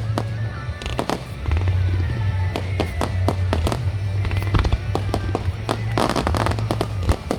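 Fireworks going off: a quick run of sharp bangs and pops, with a dense burst of crackling about six seconds in.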